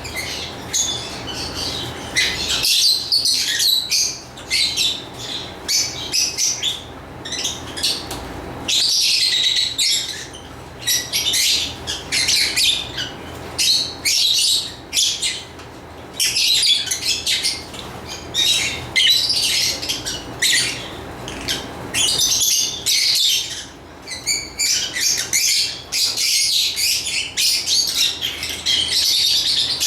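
Lovebirds chirping and squawking in rapid, shrill, overlapping bursts with short pauses between them.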